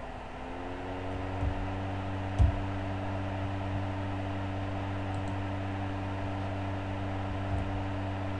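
A small motor starts up and hums, rising slightly in pitch over the first second and then holding one steady pitch. A few faint clicks sound over it, the loudest about two and a half seconds in.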